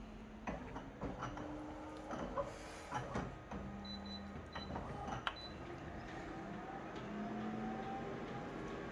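Clicks and a few short high beeps as the buttons of a copier/multifunction printer are pressed. About halfway through, its scanning motor starts with a rising whine and settles into a steady run.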